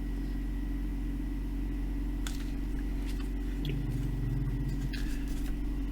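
Steady low electrical hum from the repair bench, with a thin high whine over it and a few faint clicks about two to three seconds in.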